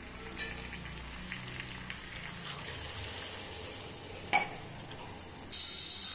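Fish and masala sizzling in a kadai as hot water goes in and is stirred with a steel spatula, with one sharp clank of the spatula on the pan about four seconds in. A louder hiss starts near the end.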